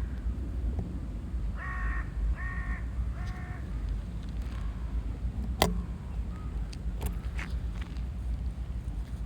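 An animal gives three short, pitched calls in quick succession, each about a third of a second long. A few seconds later comes one sharp click, then fainter ticks, over a steady low rumble.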